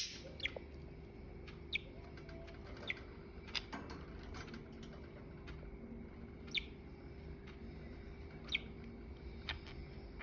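Budgerigars giving short, sharp single chirps, one every second or two, the loudest at the very start.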